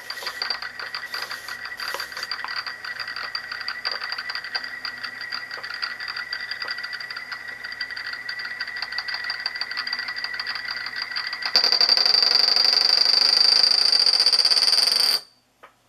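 Tungsten carbide Euler's disc spinning and rolling on a glass mirror: a fast, steady whirring chatter with a high ringing whine. About eleven and a half seconds in it turns much louder and harsher, then cuts off abruptly a few seconds later as the disc comes to rest.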